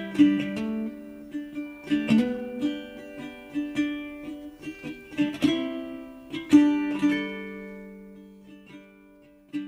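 Background instrumental music of gently plucked strings with a ukulele-like sound: short groups of notes that ring and die away, growing quieter near the end.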